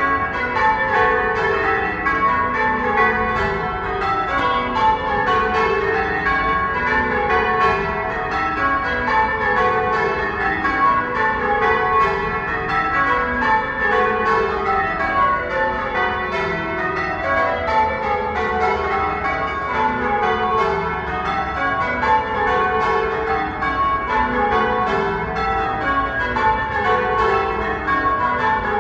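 Church bells ringing continuously. They are struck one after another in rows that fall in pitch from the highest bell to the lowest, a new row about every two seconds.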